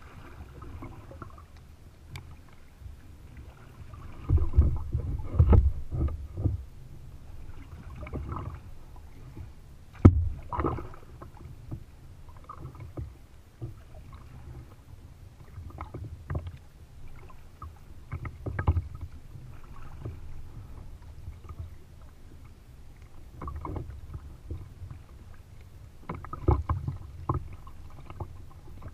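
Kayak paddle strokes: the blades dipping and splashing in the water on alternate sides, with water slapping the hull and irregular low rumbling thuds, loudest about four to six seconds in, with a sharp knock about ten seconds in.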